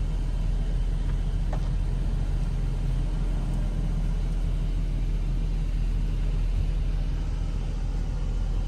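Vehicle engine idling steadily, a low even hum heard from inside the cabin.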